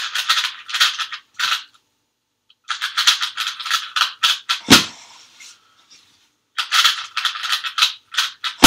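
Cyclone Boys 2x2 speedcube being turned fast by hand: rapid runs of plastic clicks and clacks from the layers, in three bursts with short pauses between them, with a sharper knock about halfway through and a loud click at the end.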